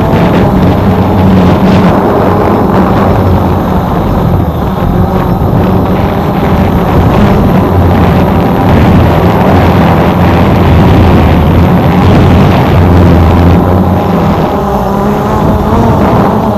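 Small quadcopter drone's propellers running with a steady, multi-toned whir, over a low, uneven rumble of wind.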